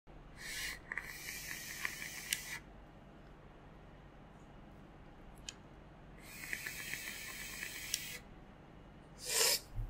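Two drags on a vape mod's atomizer, each about two seconds long: air hissing through the airflow with a fine crackle from the firing coil, the first about a second in and the second about six seconds in. A short breath sounds near the end.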